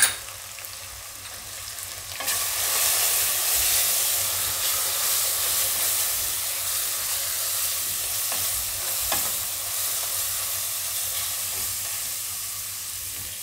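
Grated onion and spice masala frying in hot oil in a non-stick wok, sizzling as it is stirred with a silicone spatula. The sizzle gets much louder about two seconds in as the stirring starts, then eases off slowly.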